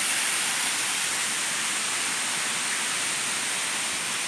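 Steady rushing hiss of a river waterfall, with no breaks or separate splashes.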